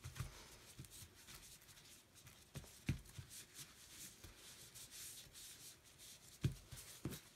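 Gloved hands pressing and rubbing a paper towel onto ink-soaked cork fabric to blot it: faint soft rubbing, with a few light knocks, the clearest about three seconds in and near the end.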